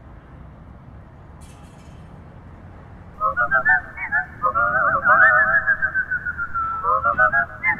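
Faint background hiss, then about three seconds in a closing-credits tune starts: a single wavering, sliding melodic line.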